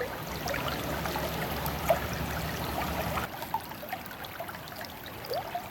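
River water rippling and trickling over shallows, with a low rumble under it that stops about three seconds in.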